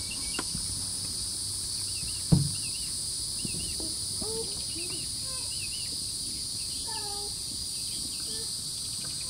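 Steady high-pitched buzz of an insect chorus, with scattered short chirping calls over it and a single sharp thump a little over two seconds in.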